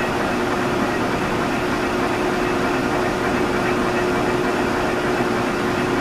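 Metal lathe running in gear, its spindle spinning a flathead cylinder barrel bolted to a counterbalanced faceplate: a steady mechanical hum with one steady tone, before the boring tool starts cutting.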